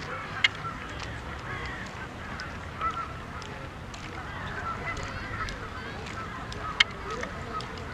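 A flock of waterfowl calling, a constant overlapping chatter of honks, broken by two sharp clicks, one about half a second in and one near the end.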